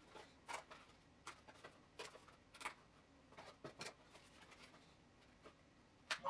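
Faint, irregular clicks and crackles of a stiff die-cut 3D puzzle sheet being handled, its pieces pressed and bent out of the sheet; a sharper crack about six seconds in.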